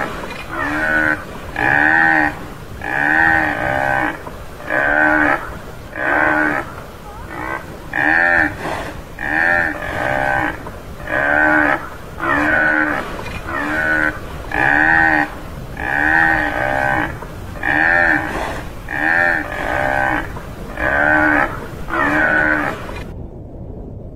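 Tamaraw (Mindoro dwarf buffalo) calling over and over, about one short call a second. Each call rises and falls in pitch. There is a brief pause near the end.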